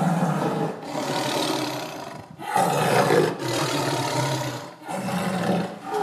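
A big cat roaring and growling: long, rough roars one after another, separated by short breaks.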